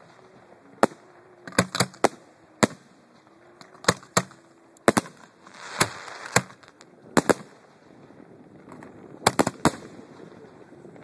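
Display fireworks going off at close range: a string of sharp bangs at irregular spacing, some in quick doubles and triples, with a brief crackling hiss about six seconds in.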